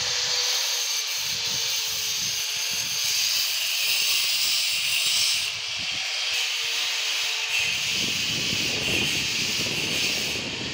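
Handheld angle grinder running against the floor, a steady hiss over a faint steady whine. In the last few seconds it gives way to a drill-driven paddle mixer churning a bucket of mix, a rougher, heavier sound.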